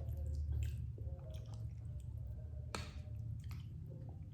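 Close-up wet chewing and mouth sounds of someone eating sticky glutinous rice in durian coconut sauce, with scattered small clicks and smacks, one sharper click about two and three-quarter seconds in.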